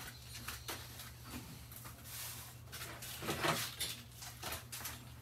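Wiring harness and plastic connectors being handled: scattered light clicks and rustling, over a steady low hum.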